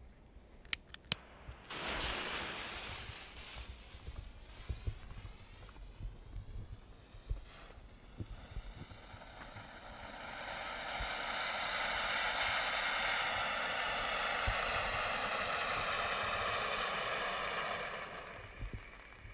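Funke Silberfontäne, a small Category 1 silver fountain firework, burning: after two sharp clicks it starts hissing about two seconds in. The hiss eases off for a few seconds, then swells into a loud, steady spray of sparks and dies away near the end.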